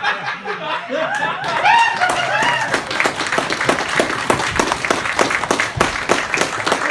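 Audience laughing, then breaking into applause about three seconds in.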